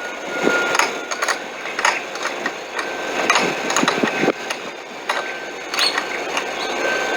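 Irregular clicks and knocks of hand tools being handled, as a 10 mm tool is readied and fitted to the car battery's negative terminal.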